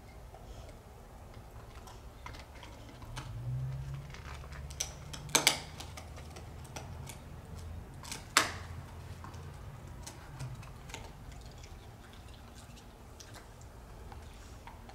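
Dog gnawing a bone: irregular clicks and crunches of teeth on bone, with two loud cracks, one about five seconds in and one about eight seconds in.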